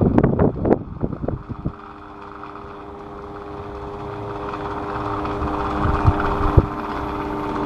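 Electric fan running with a steady hum and rush of air that grows louder over several seconds. A burst of knocks and rattles comes in the first second and a half, and two sharp knocks come about six seconds in.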